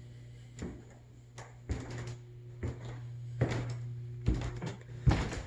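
Footsteps with dull knocks, roughly one a second, over a steady low hum.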